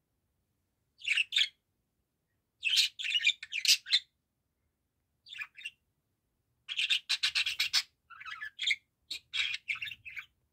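Budgerigar chattering in short bursts of scratchy warbles and chirps, broken by pauses. A longer run of fast chatter starts about seven seconds in.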